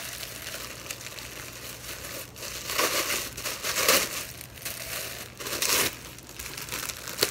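Tissue paper and packaging crinkling and rustling as a gift box is unpacked by hand, with louder crumples about three seconds in, at four seconds, and just before six seconds.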